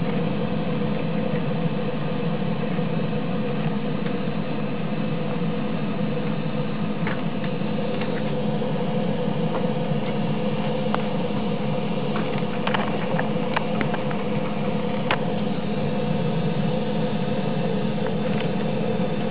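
Multi-layer wire cutting and stripping machine running with a steady hum, several faint clicks scattered through the middle.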